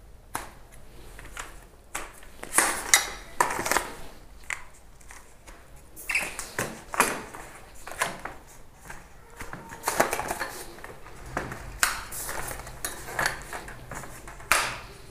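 Kodak T210 tripod being set up by hand: its leg sections sliding out and the leg flip locks snapping shut, giving irregular sharp plastic and metal clicks, knocks and short rattles.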